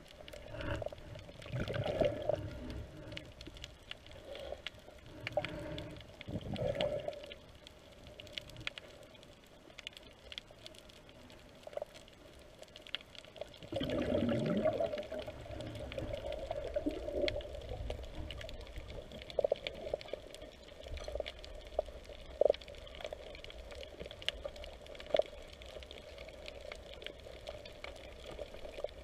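Underwater water noise as a snorkelling freediver swims and dives: sloshing and bubbling, with a louder burst of bubbles about halfway through and a few sharp clicks later on.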